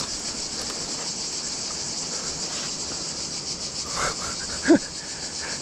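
Steady high-pitched chirring of cicadas with a fast pulsing texture. Near the end there is one brief pitched vocal sound that rises and falls.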